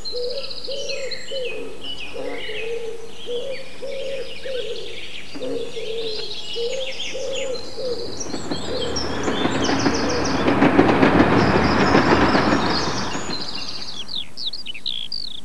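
Woodland birdsong, with many small birds chirping and a low note repeating about twice a second in the first half. A train passes in the middle, its rumble building, peaking and fading away over about six seconds.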